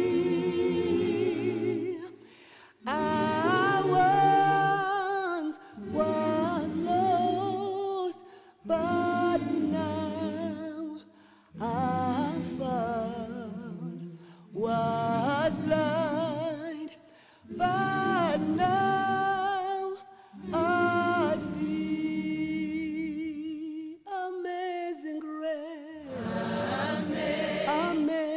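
Voices singing a slow hymn a cappella, phrase by phrase with short breaths between, the held notes wavering with vibrato.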